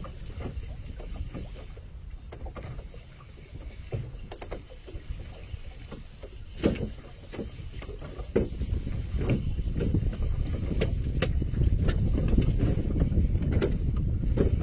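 Water sloshing against the hull of a small open fishing boat rocking on the sea, with a low rumble that grows louder about two-thirds of the way through. Scattered sharp knocks and clicks come through it.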